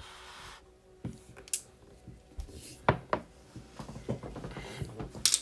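A few scattered knocks and clicks over faint background hiss, with two sharp ones close together about three seconds in and a short cluster near the end.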